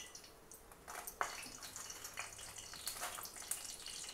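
Dried red chillies sizzling and crackling in hot oil in a kadai as a handful is added, with a sharper tap about a second in.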